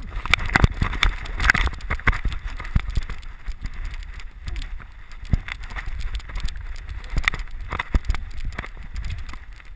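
Rhodesian ridgeback moving through snow, heard through a camera strapped to the dog: a run of irregular knocks and thuds from its footfalls and the jolting camera, over a low rumble.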